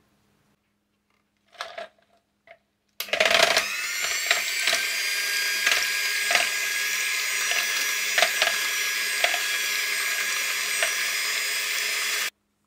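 Electric hand mixer whipping liquid cream in a glass bowl: the motor starts about three seconds in after a few light clicks and runs with a steady whine, and the wire beaters knock against the bowl now and then. It cuts off suddenly near the end.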